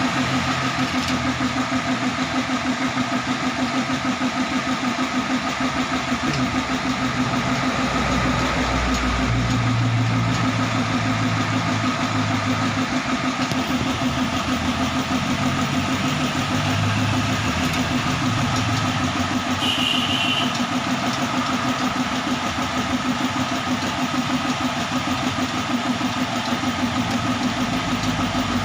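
A motor running steadily, with a fast even pulse and a steady hum. There are a few low thuds about a third of the way in and a brief high tone about two-thirds of the way through.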